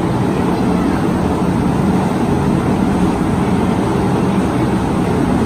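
Metro train running, a loud, steady noise without breaks.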